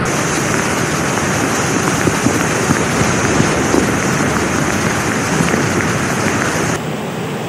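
Fast muddy floodwater rushing through a street: a loud, steady rush of water. About seven seconds in it cuts abruptly to a duller, quieter water rush.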